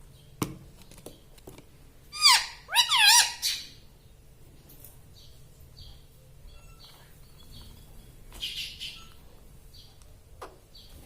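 Pet rose-ringed (ringneck) parakeet calling: a loud run of a few sweeping, rising-and-falling calls about two seconds in. Faint short chirps follow, then a brief harsh squawk near the end.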